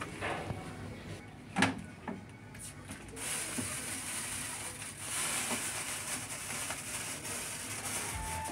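Brown rice pouring from a bag into the hopper of a rice-polishing machine: a steady hiss of grains that starts about three seconds in. Before it come a few short knocks, the loudest about a second and a half in.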